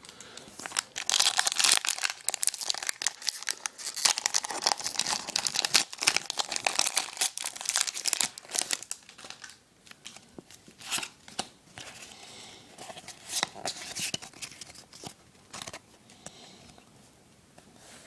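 Foil wrapper of a Pokémon card booster pack being torn open and crinkled for about nine seconds, then fainter, scattered crinkles and clicks as the pack is handled.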